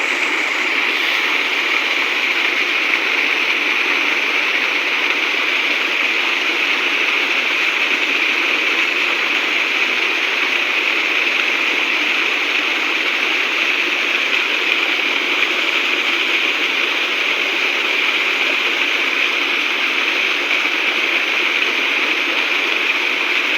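Steady rushing and splashing of water from a small waterfall.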